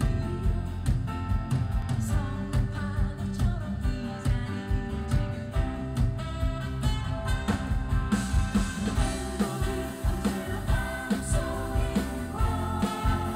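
Live band playing a 1970s–80s Korean pop song with a steady drum beat, bass and guitar, with a singer's voice over it.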